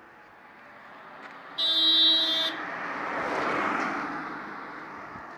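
A car horn gives one short, steady blast of about a second. Then a small white hatchback drives past close by, its noise swelling and fading away.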